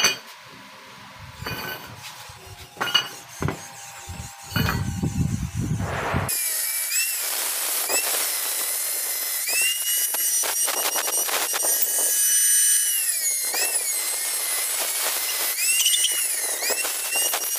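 Handheld angle grinder with a cut-off disc cutting thick 304 stainless steel tube: a loud high whine that starts about six seconds in and dips in pitch several times as it cuts. Before it starts, a few clicks and knocks of metal being handled.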